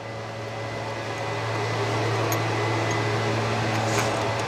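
An electric blower fan motor runs with a steady hum, growing louder over the first couple of seconds as it comes up to speed and then holding steady.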